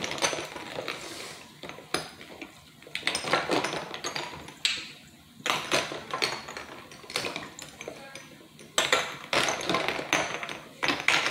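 Small glass bottles and vials clinking against one another and the plastic tub as gloved hands scrub them in soapy water, with irregular bursts of sloshing every second or two.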